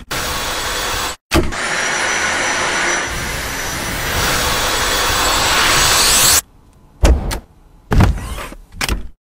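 Dyson V7 Animal cordless stick vacuum running with a steady hiss and a faint high whine, broken by a brief silent gap about a second in. About six seconds in the vacuum noise stops, and a few separate dull thumps follow.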